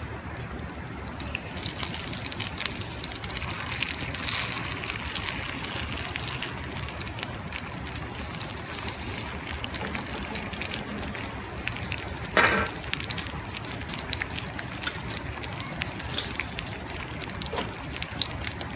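Sardines cooking on a grill over a wood fire: a light, crackly sizzle with small pops, weak enough that the cook suspects the fire is too low. A short, louder noise comes about twelve seconds in.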